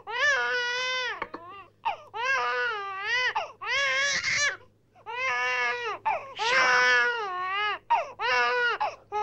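A baby crying hard: a string of about eight high-pitched wailing cries, each under about a second long, with short gaps for breath between them.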